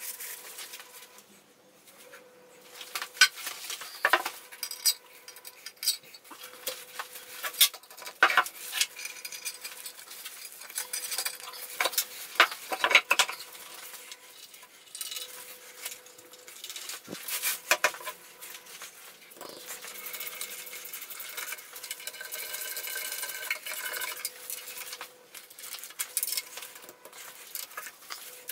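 A metal milling-machine tilting angle table being handled and wiped: repeated sharp clinks and knocks of metal parts, with cloth rubbing and plastic sheeting rustling in between. A faint steady hum sits underneath.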